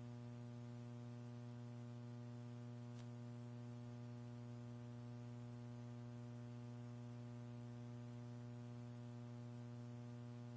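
Steady electrical mains hum with many evenly spaced overtones over a faint hiss, on the mission-control audio line between callouts; no rocket engine noise is heard.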